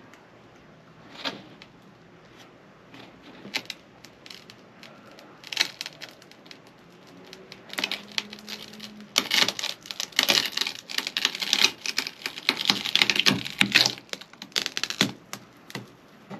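A wooden form board being worked loose and pried off the edge of a cured epoxy floor: scattered clicks and knocks, a short hum about halfway through, then several seconds of dense crackling and snapping as the board and the resin stuck to it come apart.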